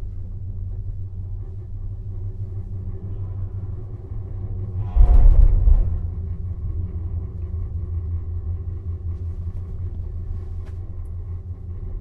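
Steady low rumble inside a moving Agamatic gondola cabin as it rides the cable. About five seconds in, a louder rumbling clatter lasting about a second as the cabin's grip runs over the rollers of a support tower.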